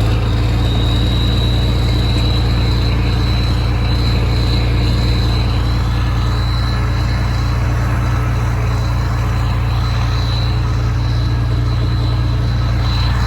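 Tractor engine running steadily at raised throttle, with a thin steady high whine above the low engine hum.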